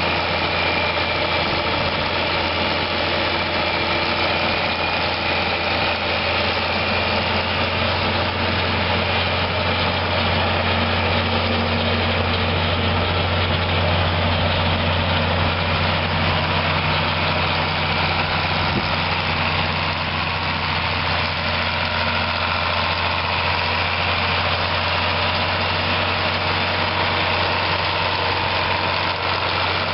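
1965 John Deere 4020 tractor's 6.6-litre six-cylinder diesel engine running steadily as the tractor drives along.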